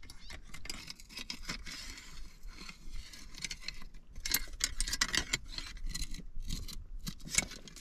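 Metal crab hook worked into a mud crab's burrow under a rock ledge, scraping and clicking irregularly against rock and the crab's shell.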